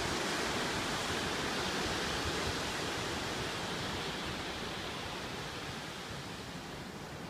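Ocean surf: a steady rushing noise of breaking waves that slowly dies down.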